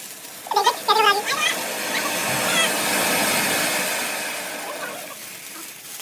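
A ground fountain firework hissing as it sprays sparks. The hiss swells for a couple of seconds and then fades away. A voice calls out briefly near the start.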